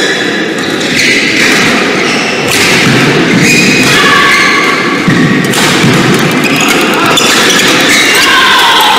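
Indoor badminton hall: repeated thuds of footwork and hits, with sneakers squeaking on the court floor near the end.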